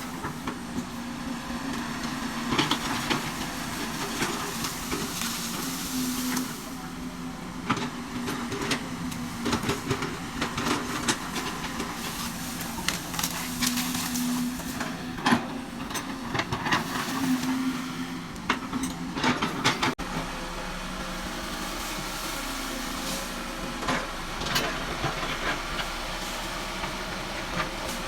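Excavator engine running with a steady drone that swells and eases, over a hiss, with frequent sharp clanks and knocks.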